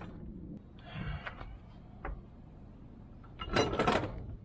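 Steel quick-coupler parts being handled and taken apart: a short scrape about a second in, a single click near two seconds, and a louder metal clatter with a brief ring near the end.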